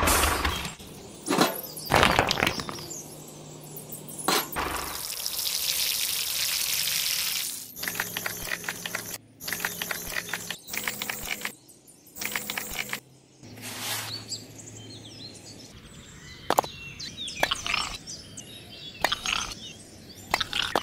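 Hand work on a miniature brick build: wet cement mortar scraped and spread with a small tool, and tiny bricks set down with light clicks and taps, in several short clips.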